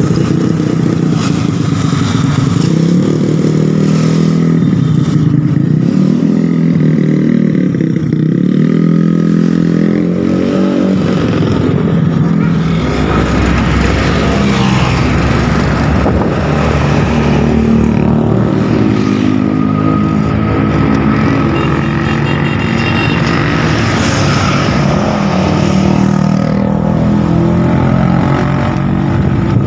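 Vespa scooter engine running continuously, its revs wavering up and down for the first ten seconds or so, then settling to a steadier run.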